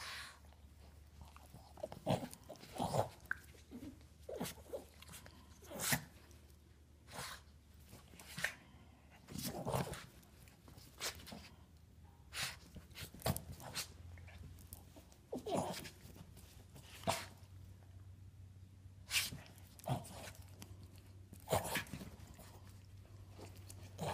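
Boston terrier and miniature pinscher play-fighting at close range: short, scattered dog noises, about one every second or so.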